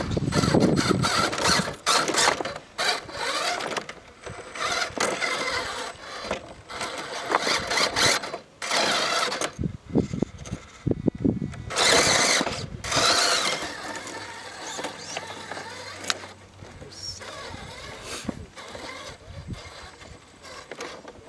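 Axial SCX10 radio-controlled scale rock crawlers driving over rough rocks: their small electric motors and geared drivetrains whine in irregular bursts as the throttle is worked, loudest near the start and again about ten to thirteen seconds in as one truck climbs close by.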